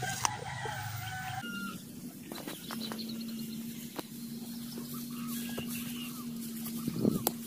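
Chickens calling, with a steady low hum running under them from about a second and a half in.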